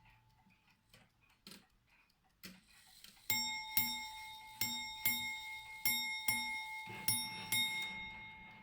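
Ship's bell clock striking eight bells: eight strokes on its bell in four pairs, each stroke ringing on, marking the end of a four-hour watch. A few faint clicks come before the strikes.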